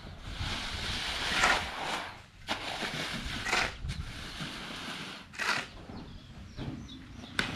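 Wooden rake dragged through unhusked rice (palay) spread on a tarpaulin to dry, turning the grain: rasping strokes of sliding grain about every two seconds, with a few sharp clicks.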